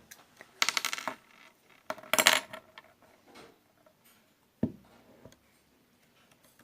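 Slime being squeezed and pressed by hand, giving two short bursts of rapid crackling pops from trapped air, then a single knock.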